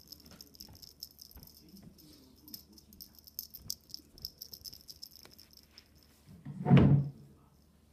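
Light, rapid rattling and jingling of a cat toy being shaken and skittered across a wooden floor, with a single loud thump about seven seconds in.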